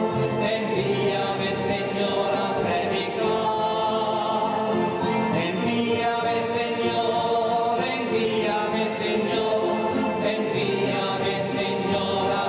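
Many voices singing a hymn together, choir-like, over instrumental accompaniment, at a steady level without pause.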